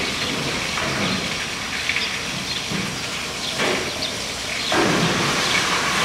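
Steady hiss and rumble of N&W 475, a steam locomotive standing in the engine house with steam up.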